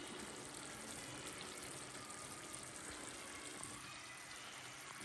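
Faint, steady hiss of pots cooking on a gas stove.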